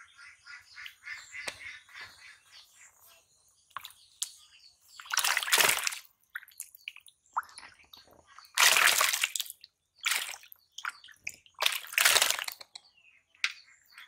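Caught fish thrashing in a plastic tub of water, making three loud splashes with smaller sloshes between. Rapid bird chirping in the first couple of seconds.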